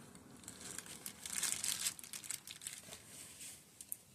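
Small handling noises from fitting a circlip with circlip pliers: a quiet patter of light rustling and small clicks, densest in the first half and thinning to a few sharp clicks near the end.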